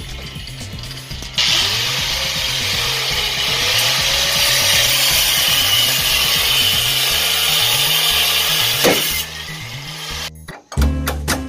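A handheld grinder's abrasive cut-off wheel cutting through steel on the car's rear suspension, throwing sparks. It starts about a second and a half in and stops after about eight seconds, its pitch sagging and recovering as the wheel bites.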